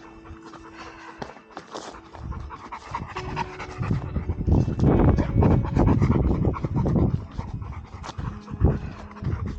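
Big Mastiff-mix dog panting hard in quick, rhythmic breaths, loudest in the middle, winded from climbing a hill.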